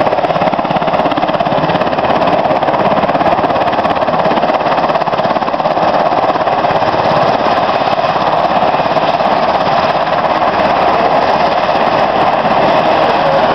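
A U.S. Coast Guard MH-60 Jayhawk helicopter running on the ground with its rotors turning: a loud, steady mix of twin-turbine whine and rotor noise.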